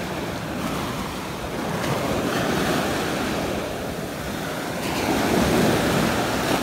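Small sea waves breaking and washing up over the sand at the water's edge, the surf swelling louder about five seconds in.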